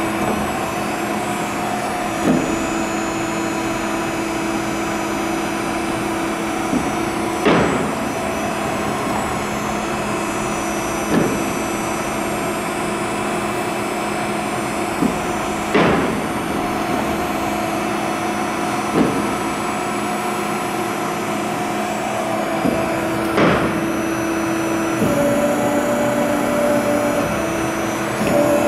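Four-roll CNC plate bending roll running, giving a steady machine hum with a few held tones whose pitch shifts near the end. Several short sharp knocks come at irregular intervals.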